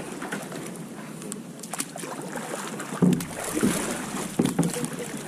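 A small boat being moved along a river: water sloshing around the hull, with several sharp knocks and thuds, the loudest about three seconds in.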